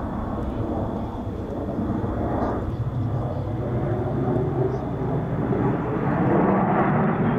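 Jet engine rumble from four F-16 Fighting Falcons flying in tight formation, growing louder near the end.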